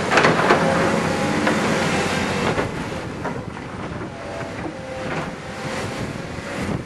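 Tracked excavators at work: diesel engines running under load, with clanks and scrapes of the buckets in loose spoil, loudest in the first couple of seconds. Blustery wind crackles on the microphone throughout.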